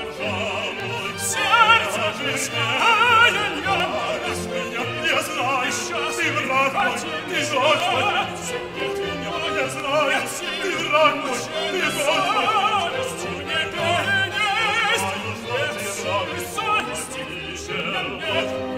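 Male operatic singing with wide vibrato over a full symphony orchestra.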